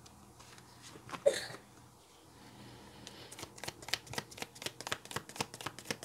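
A deck of oracle cards being shuffled by hand: a rapid run of short card flicks and snaps that starts about three seconds in. A single short soft sound comes about a second in.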